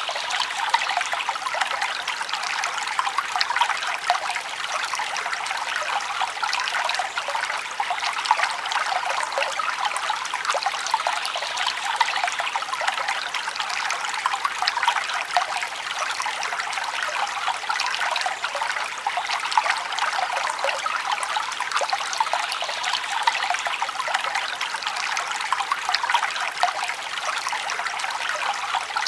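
Forest brook flowing steadily over stones, a continuous babbling trickle with many small splashes.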